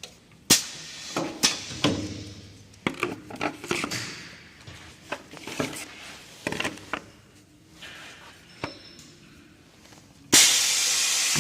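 Sharp metal knocks and clicks, some briefly ringing, from a seam welding machine being worked. Near the end a loud, steady hiss starts abruptly.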